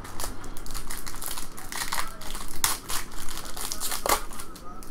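Foil wrapper of an Upper Deck Marvel Premier trading-card pack crinkling as it is handled and opened by hand, a run of irregular sharp crackles with a few louder ones.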